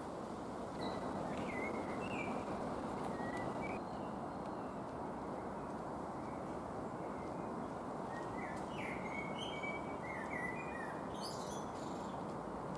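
Songbirds chirping and calling in short rising and falling notes over a steady background rush of noise. There is one bout of calls in the first few seconds, and a busier bout with some higher calls a little past the middle.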